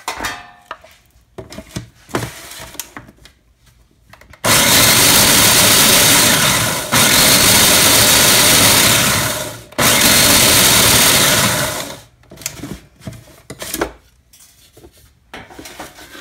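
Countertop food processor grinding baked, dried eggshells into grit: three loud runs, together about seven and a half seconds long, with two brief breaks between them, starting about four seconds in. Short clicks and knocks of the bowl and lid being handled come before and after.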